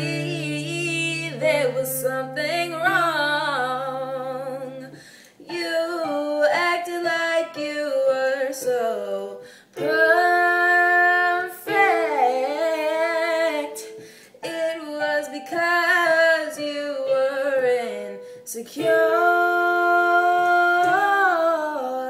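A girl singing a soulful original ballad, accompanying herself on piano; several long held notes waver with vibrato, and she pauses briefly between phrases.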